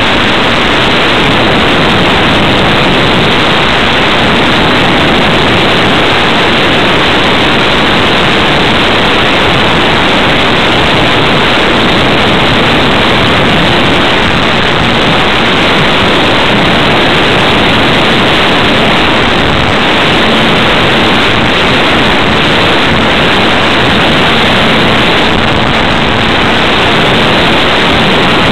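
Loud, steady rushing noise picked up by a camera on a ParkZone T-28 Trojan electric RC plane in flight: wind over the microphone and the running motor and propeller, blurred together into an even hiss.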